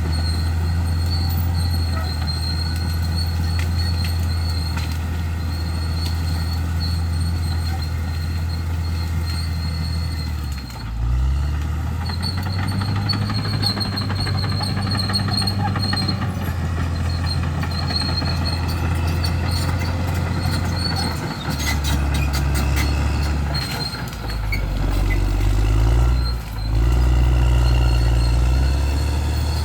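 Bulldozer's diesel engine running under load while clearing brush, with a steady high whine above it. The engine note dips and recovers about a third of the way in and twice more near the end, as the load on the machine changes. A brief run of sharp clicks comes between the last two dips.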